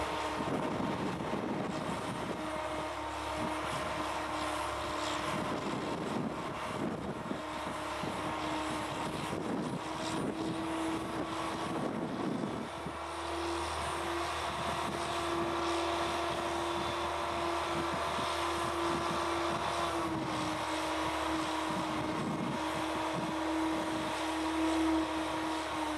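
Mobile crane engine running with a steady drone while the hook and spreader beam are hoisted. Its pitch steps up a little and grows louder about halfway through as the engine takes more load.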